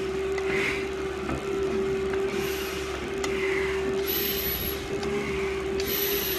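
Steady motor whine of a stair-climbing machine running under a climber, with hard breaths hissing through a full-face respirator mask about once a second.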